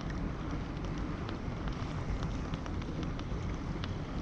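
Wind buffeting the microphone over waves lapping against a plastic fishing kayak's hull, with scattered small splashes and ticks of water.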